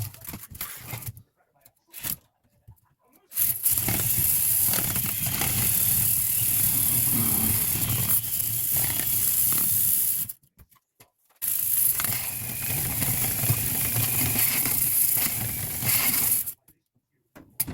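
A motor running with a loud rushing hiss over a low hum, in two stretches of several seconds that start and stop abruptly.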